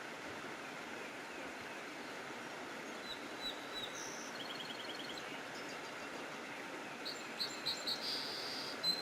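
Songbirds calling over a steady hiss. A few short high notes come about three seconds in, then a quick trill of rapid repeated notes, and near the end several loud chirps and a short buzzy call.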